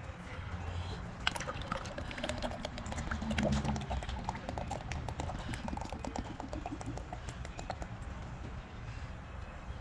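Motor oil being poured from quart bottles into a funnel, with a run of small irregular clicks and taps over a low rumble.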